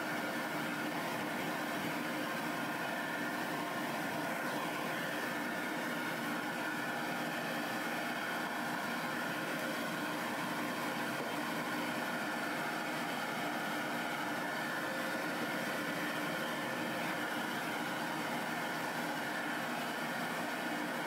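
Pet-grooming dryer running steadily: a constant whir of motor and blowing air with an even hum.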